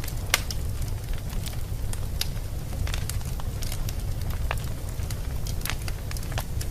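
Wood fire burning in a fireplace: irregular sharp crackles and pops over a steady low rumble of flames.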